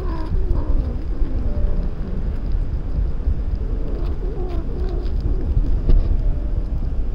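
Wind buffeting the microphone with a steady low rumble, while cats meow in drawn-out, wavering calls near the start and again about four seconds in.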